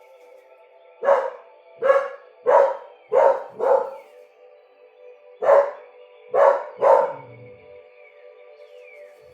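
A dog barking, about eight sharp barks in two runs, five in quick succession and then three more a little later. The dog is barking at a cat it heard outside.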